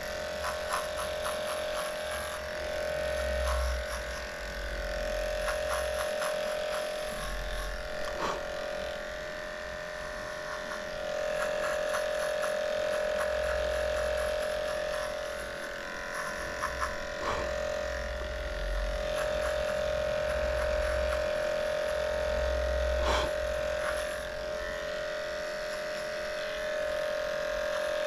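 Heiniger cordless pet clipper running with a steady motor hum as it trims the hair between a dog's paw pads, its loudness swelling and dipping as the blade moves over the paw.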